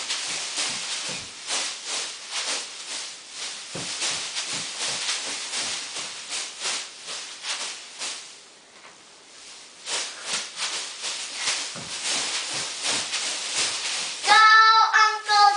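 Tinsel cheerleading pom-poms being shaken and swung, a rapid run of rustling swishes that eases off briefly a little past halfway. Near the end a child gives two loud, high-pitched shouts, the loudest sound here.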